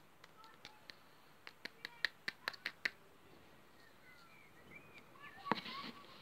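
About ten sharp clicks and taps in the first three seconds as a plastic sherbet sweet cup is handled, then a short crackly rustle of its wrapper about five seconds in.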